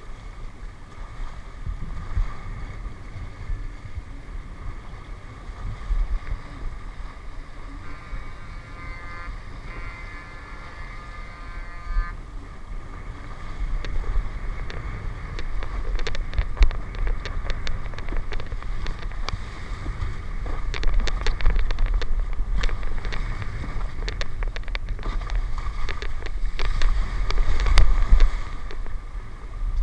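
Wind rumbling on the microphone over a steady low mechanical hum, with many sharp clicks and knocks in the second half.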